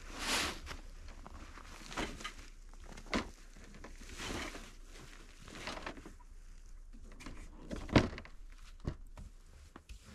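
Boots crunching through snow and gear rustling, with a few knocks, then a Honda CR-V's door shutting with a solid thump about eight seconds in, the loudest sound.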